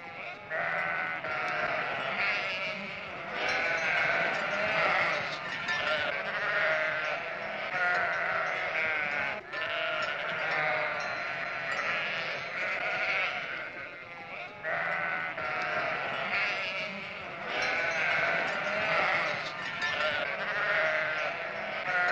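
A flock of sheep bleating, with many calls overlapping one another throughout.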